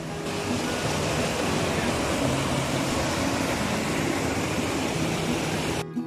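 Rushing water of a small mountain waterfall and stream, white water pouring over boulders in a steady, even rush that dips briefly near the end.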